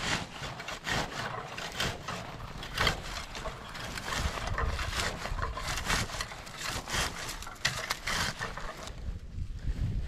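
Rustling and scraping in low bog vegetation, an irregular run of brushing strokes that eases off near the end.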